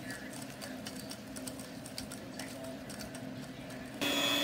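Silicone-coated balloon whisk beating cream cheese and butter in a stainless steel bowl: light, irregular clicks and scrapes of the wires against the steel. About four seconds in, a Hanabishi electric hand mixer takes over, its motor running with a steady whine, much louder.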